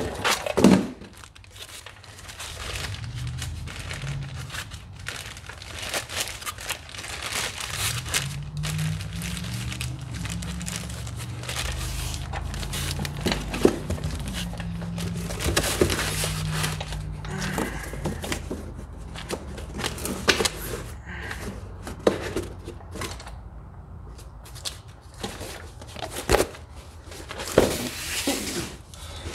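Clear plastic bag crinkling and rustling as a new ATV drive axle with foam end caps is handled and packed back into its bag. There are a few sharp knocks near the end.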